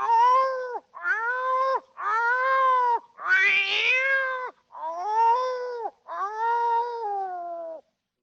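Cat meowing six times in a row, each meow about a second long and arching slightly in pitch, with short pauses between.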